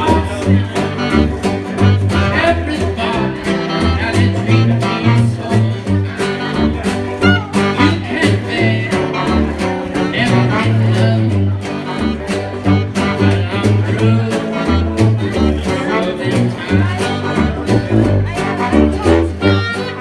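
Traditional New Orleans jazz band playing live. A clarinet and a trombone play over a sousaphone bass line, and strummed acoustic guitar and washboard keep a steady beat.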